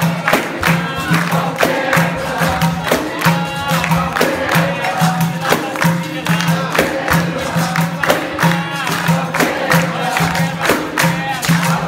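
Capoeira roda music: voices singing over a steady percussion rhythm with frequent jingly strikes and a low, pulsing drum-like beat.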